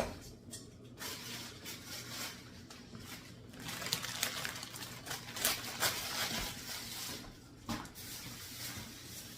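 Kitchen handling noises while preparing to cook noodles: rustling, with a few sharp clicks and knocks of cookware.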